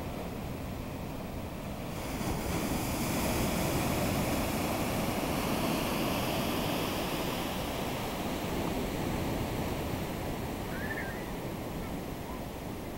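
Ocean surf: a wave breaks about two seconds in, and its rushing whitewater hiss swells, then slowly fades as the foam spreads out.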